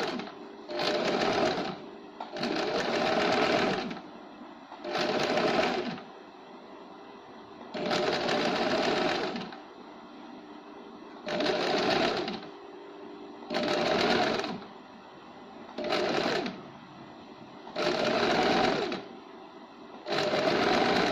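Small white sewing machine stitching lace trim onto fabric in about nine short stop-start runs of one to two seconds each, with brief pauses between runs as the fabric is turned.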